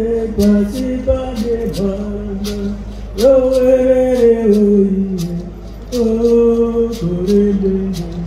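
A woman singing solo in long held notes that step and slide downward, with a hosho gourd rattle shaken in a steady beat of about two shakes a second.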